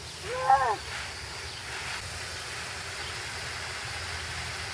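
Garden hose spray nozzle running, a steady hiss of spraying water. About half a second in, a child's short call rises and falls in pitch.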